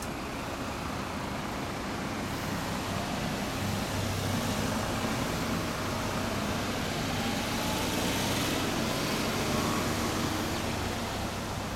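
Road traffic noise: a steady low hum of vehicles on the street, swelling a little louder through the middle as one passes.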